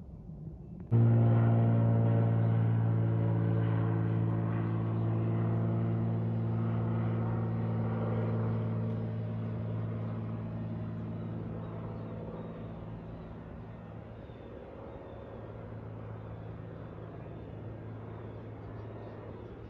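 Light propeller airplane passing low overhead: a steady engine-and-propeller drone with a strong low hum. It cuts in abruptly about a second in, then fades slowly over the next dozen seconds.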